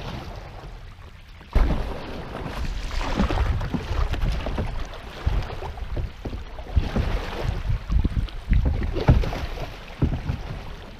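Canoe running over a log into a fast riffle: river water rushes and splashes around the hull, with rough knocks and scrapes against the hull. It starts suddenly about one and a half seconds in.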